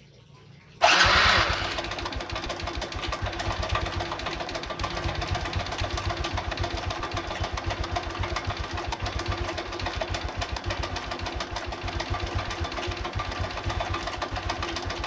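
Honda Revo Absolute's single-cylinder four-stroke engine starting about a second in, then idling steadily with a fast kletek-kletek rattle and tapping. The owner puts the noise down to a worn cam chain and a worn, undersized piston.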